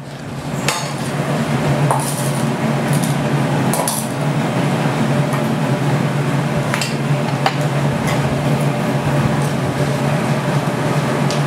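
Steady roar of the glass studio's furnace burners, with a handful of light metallic clinks as the steel blowpipe is rolled along the bench arms.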